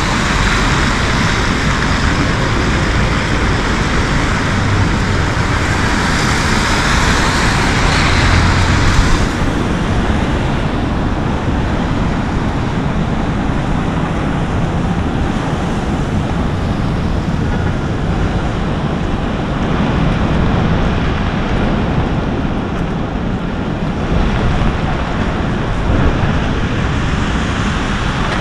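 Heavy rain on a city street with traffic: a steady hiss of rain and wet road over a low traffic rumble. The hiss is louder and brighter for the first nine seconds or so, then drops back.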